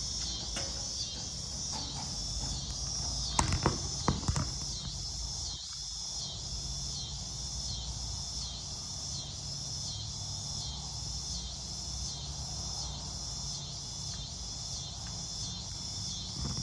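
Insects chirping in a steady, high-pitched pulsing rhythm of about one and a half pulses a second, with a few sharp knocks about three and a half to four seconds in and a low hum underneath.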